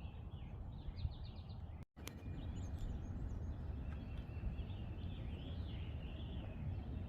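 Low, steady rumble of wind on the microphone, with songbirds chirping throughout. The sound cuts out completely for a moment about two seconds in.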